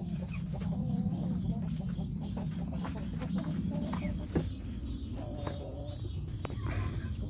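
Chickens clucking softly now and then while they forage, with a few sharp ticks over a steady low rumble.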